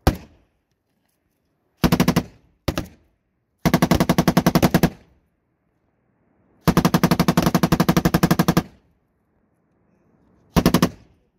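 Belt-fed machine gun firing in bursts of rapid shots: two short bursts about two seconds in, a burst of about a second just before the middle, the longest burst of about two seconds after the middle, and a short one near the end.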